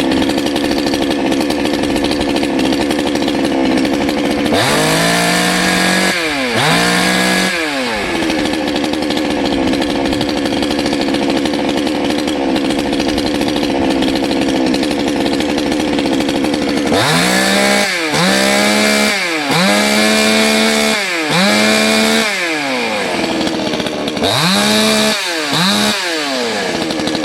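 Salem Master two-stroke chainsaw idling, its throttle blipped twice about five seconds in and then in a quick string of revs through the second half, each rising sharply and dropping back to idle. Its carburetor's low idle has just been brought back into tune with less than a quarter turn of the screw, and it sounds better.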